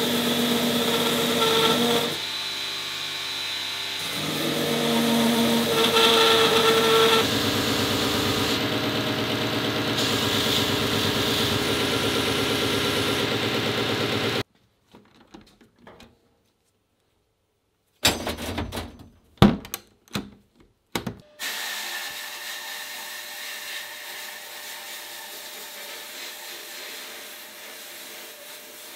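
Belt grinder running under load as a metal mace handle is pressed against the belt, its level rising and falling with the pressure. It cuts off suddenly about halfway through. A few sharp knocks follow, then a steady, quieter hiss that slowly fades.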